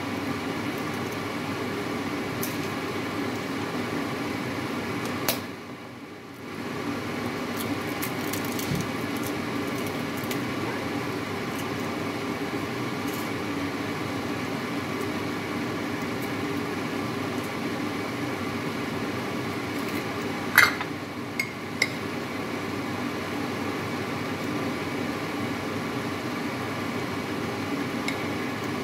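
A steady mechanical hum from a running appliance or fan, dropping away for about a second around five seconds in. A few sharp clinks of kitchenware come about two-thirds of the way through, the loudest sounds in the stretch.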